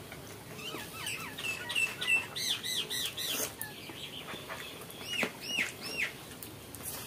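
A bird singing: a quick run of short arched chirps from about one to three and a half seconds in, then three more like them a little after five seconds.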